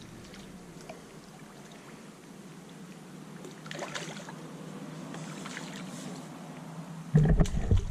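A hooked fish splashing at the surface of a pond as it is played on a pole line, with bursts of water sloshing. Near the end come a few loud, low bumps.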